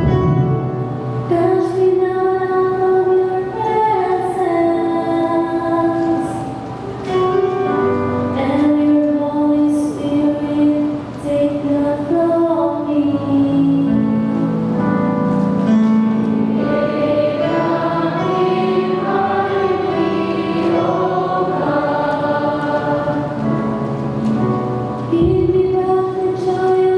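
A choir singing, the responsorial psalm that follows the first reading at Mass.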